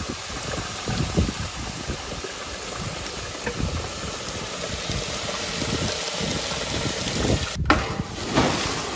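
Steady hiss of steam rising from the burnt-out engine bay of a fire-gutted squarebody pickup, with wind gusting on the microphone. After a cut near the end, water splashes from a bucket onto the truck's body.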